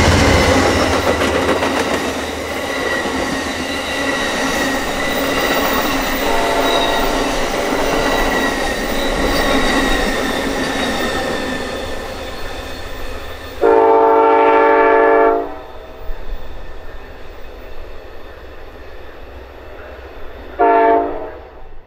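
Amtrak California Zephyr's bilevel Superliner passenger cars rolling past on jointed track, with steady wheel-on-rail noise and a thin high wheel squeal, fading as the train moves away. A train horn sounds faintly about a quarter of the way in, gives a loud blast of about two seconds a little past the middle, and a short toot near the end.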